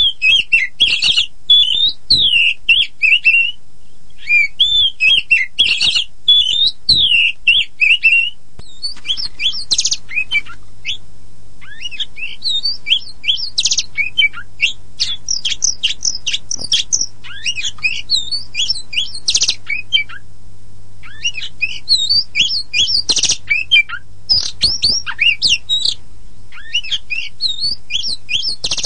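Oriental magpie-robin (kacer poci, the black-and-white form) singing a fast, varied run of whistles and chirps, with a couple of brief pauses. A faint steady low hum runs underneath.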